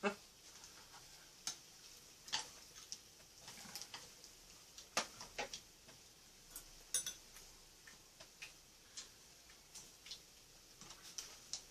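Eating sounds of grilled pork belly wrapped in lettuce: irregular small clicks and smacks of chewing, with leaves and utensils handled on the table.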